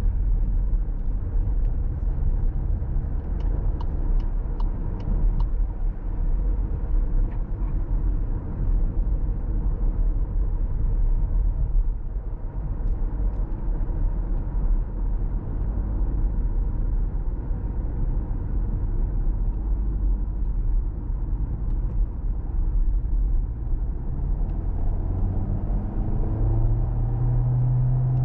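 Interior sound of a 2024 Volkswagen Tiguan with the 1.5 eTSI four-cylinder mild-hybrid petrol engine cruising: a steady low road and tyre rumble with the engine underneath. Near the end the engine note rises as the car picks up speed. A few seconds in there is a brief run of faint, evenly spaced ticks.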